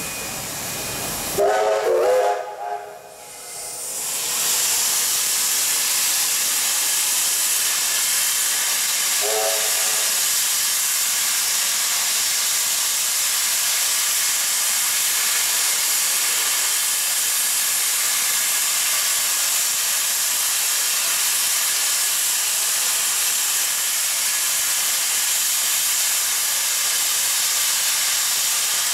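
Steam locomotive venting steam close by: a loud, steady hiss that settles in about four seconds in. A brief pitched sound comes about two seconds in and another, fainter one about ten seconds in.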